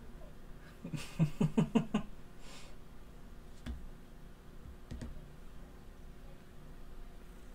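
A person's voice in a quick run of about six short pulses, like a brief stifled laugh, about a second in, followed by a few faint clicks.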